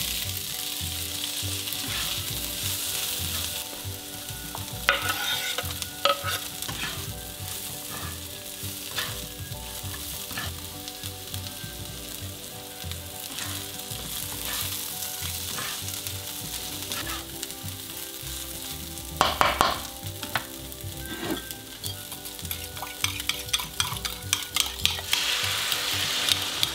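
Bread cubes sizzling in hot oil in a nonstick frying pan, with a spatula scraping and knocking against the pan as they are stirred. Near the end, beaten egg is poured in and the sizzle grows louder, with a run of quick knocks.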